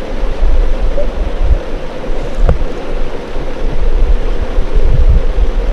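Creek water rushing and churning, recorded underwater: a loud, steady rush with a heavy, uneven low rumble.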